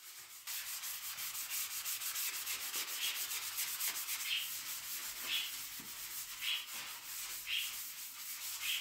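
A 220-grit sanding sponge rubbed back and forth by hand over dried wall putty: a dense, scratchy hiss of quick strokes that starts about half a second in, with a slightly stronger stroke about once a second.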